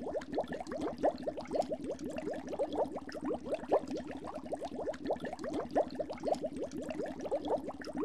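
Water bubbling and gurgling: a rapid, irregular run of short pops, several a second.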